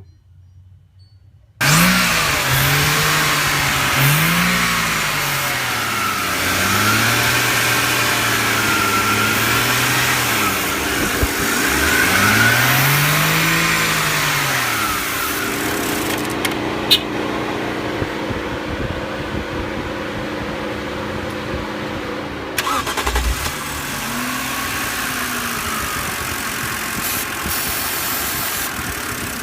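BMW car engine running, its revs rising and falling again and again. It starts abruptly about a second and a half in.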